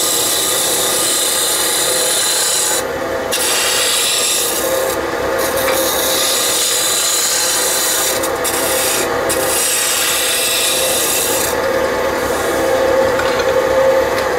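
Roughing gouge cutting a spinning tulipwood spindle blank on a small hobby lathe: a continuous hiss of shavings being torn off, over a steady motor hum. The cut breaks off briefly five or so times as the tool lifts, because the blank is still out of round and the gouge bounces on its corners.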